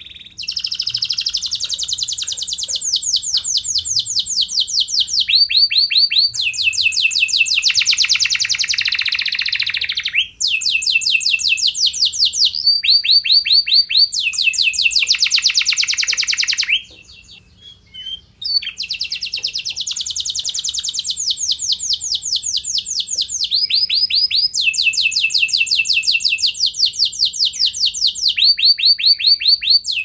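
Red canary singing in full song: long, rapid trills of quickly repeated notes, each phrase at a different pitch, with a pause of about two seconds a little past the middle.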